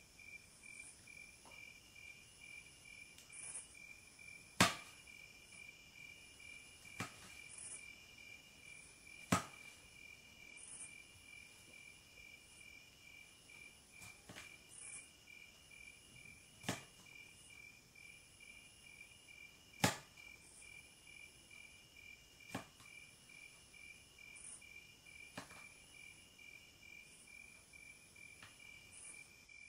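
Crickets chirping steadily in a fast, even pulse, with a sharp click or knock every few seconds, each ringing briefly.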